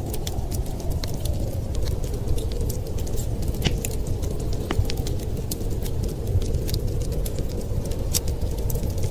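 Wood fire crackling in a fireplace, with many quick irregular pops and snaps, over a steady low rush of blizzard wind.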